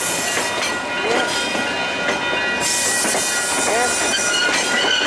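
A train rolling along the rails with steady running noise and some high-pitched tones, getting hissier about halfway through.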